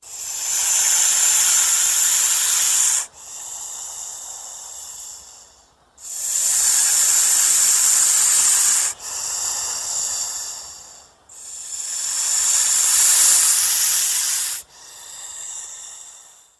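Snake hissing: three long, loud hisses, each followed straight away by a quieter, shorter hiss.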